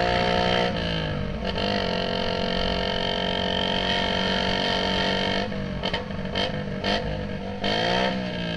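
Motorcycle engine running through a newly fitted aftermarket exhaust tip. The engine note dips about a second in and holds steady, then wavers and rises and falls again near the end.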